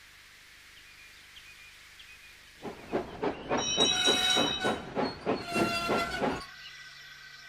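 Steam locomotive chuffing in quick, even beats as it passes, with its steam whistle blown twice over the chuffs; it cuts off suddenly and a quieter steady hum is left.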